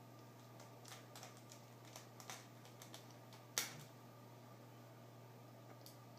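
Small screwdriver clicking lightly against screws and the metal frame of a laptop screen while it is fastened in: a scatter of faint ticks, then one sharper click about three and a half seconds in.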